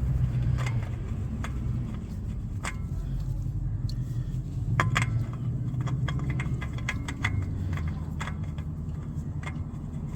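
Scattered light clicks and rattles of a new oil filter and tools being handled while the filter is threaded on by hand, over a steady low mechanical hum.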